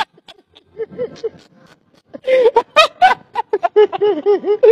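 Men laughing heartily in short repeated 'ha-ha' bursts, starting about halfway through after a quieter stretch.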